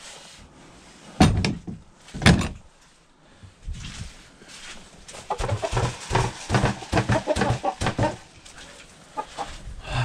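Hens clucking, with two loud knocks about a second apart near the start and a run of quick clucks in the second half.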